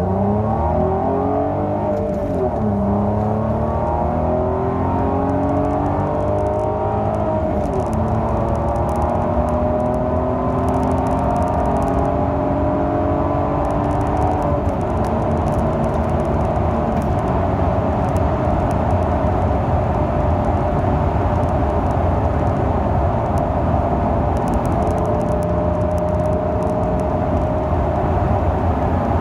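Peugeot 406 Coupé V6 engine accelerating through the gears. Its pitch climbs and drops at gear changes about 3 and 7 seconds in, then holds fairly steady at cruise, with another drop near the middle. Faint clicking from the microphone runs over it.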